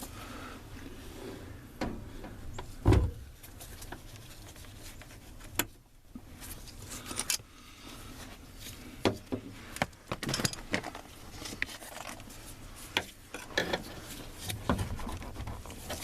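Scattered metal clicks, scrapes and knocks as an old door hinge pin is worked loose from a 1995 Ford F-250's door hinge, with one sharper knock about three seconds in.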